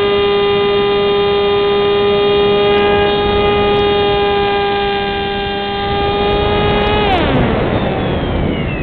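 Electric motor and propeller of a Wing Dragon RC flying wing, heard from the onboard camera, whining at a steady high pitch under power. About seven seconds in the pitch falls sharply as the throttle is cut, and a rush of air takes over as the model dives.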